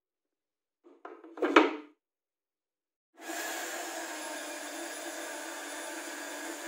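A brief wooden knock and rattle, then a corded electric hand drill starts about three seconds in and runs steadily at constant speed in a homemade drill-press stand.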